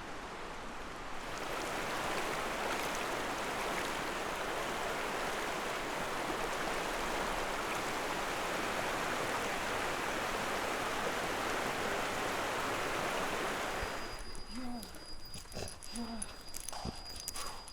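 Steady rushing noise that cuts off abruptly about fourteen seconds in, giving way to a quieter stretch with two short rising-and-falling calls and scattered clicks.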